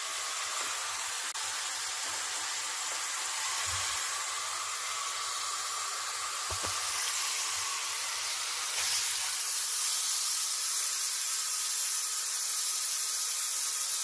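Shower head spraying water into the plastic tub of a mini portable washing machine as it fills: a steady hiss of running water, a little louder from about nine seconds in.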